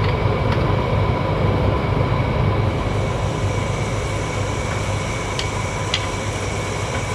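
Steady low machine hum and rumble with a couple of faint steady tones, and a few light metallic clicks about two-thirds of the way through, like tools knocking against the gear case.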